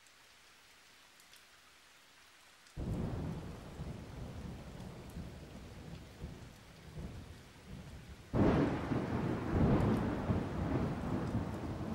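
Thunderstorm: a faint steady hiss of rain, then a sudden deep thunderclap about three seconds in that rumbles on and slowly fades. A second, louder clap breaks a little past eight seconds in.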